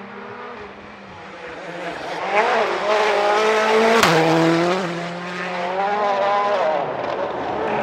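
A turbocharged 1.6-litre four-cylinder World Rally Car engine at full throttle as the car passes at speed. The engine note climbs, drops with a sharp crack at a gear change about four seconds in, then climbs and falls again.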